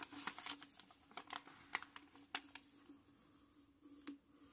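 Double-sided origami paper being handled and creased: a run of light paper crackles and taps as the sheet is folded and turned over, busiest in the first two and a half seconds, with one more crackle about four seconds in.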